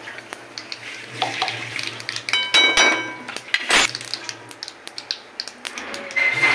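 A metal spoon clinking and scraping in a steel kadai, one strike ringing out clearly about two and a half seconds in, over the small crackle of mustard seeds popping in hot oil during tempering.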